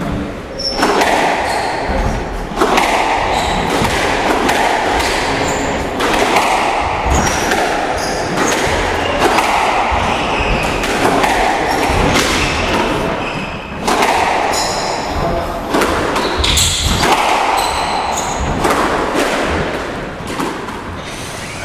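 Squash rally: the ball struck by rackets and smacking against the court walls in quick, irregular succession, with short high squeaks of shoes on the court floor.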